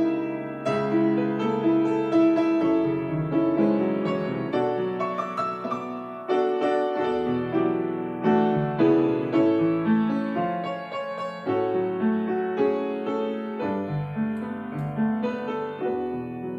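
Grand piano played solo: a steady flow of chords and melody notes, each struck and then fading.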